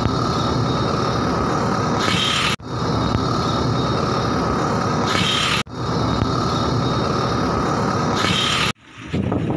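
Tracked surface rock-drill rig drilling a blasthole in quarry rock, engine and drill running steadily with a steady whine. A short hiss comes about every three seconds, and the sound cuts out abruptly three times.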